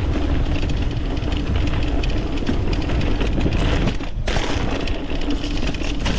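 Mountain bike riding down a dirt trail: wind buffeting the microphone over tyres rolling and the bike rattling on rough ground. The rattle and hiss drop out briefly about four seconds in.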